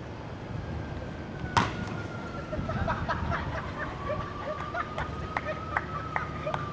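Inflatable bubble suits colliding: one sharp, loud impact about one and a half seconds in as the running volunteer's suit slams into the line, then a run of lighter knocks as the suited volunteers bump into each other.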